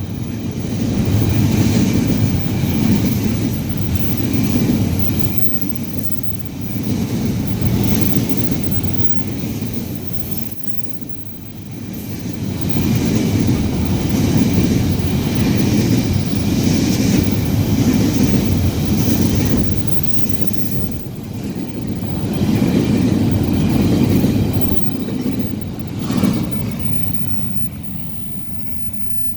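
Train running on the track: a loud wheel-on-rail rumble that swells and fades several times, with faint wheel squeal.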